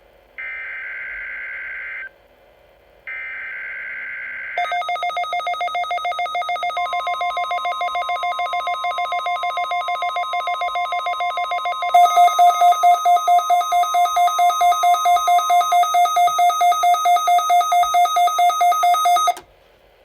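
NOAA Weather Radio EAS/SAME header: two screechy digital data bursts of about a second and a half each, signalling a Required Weekly Test. From about four and a half seconds in, a weather radio receiver's alarm beeps rapidly, with the steady 1050 Hz warning alarm tone under it for several seconds. About twelve seconds in a second, louder receiver alarm joins, and all of it cuts off abruptly just before the end.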